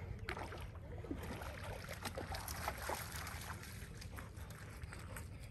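Labrador swimming and wading out of shallow water: paddling splashes and sloshing, busiest in the first three seconds, over a low wind rumble on the microphone.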